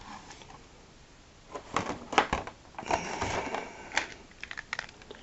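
Hard plastic toy starship being handled and set down on a wooden tabletop. A quick run of sharp plastic clicks and knocks comes about two seconds in, a short rustle follows around three seconds, and one more click comes near four seconds.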